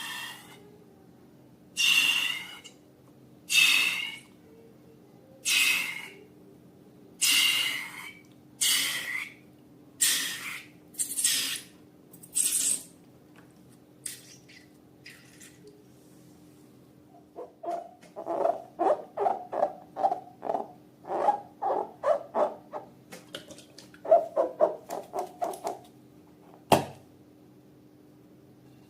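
Slime being pressed and squished by hand: a series of separate squelching presses about every second and a half, then quick runs of small pops and clicks, and one sharp click near the end.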